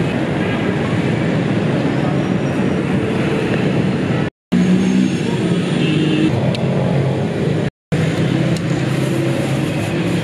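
Busy roadside traffic with a steady hum of engines, running loud throughout. It cuts out briefly twice, at about four and a half seconds and at about eight seconds.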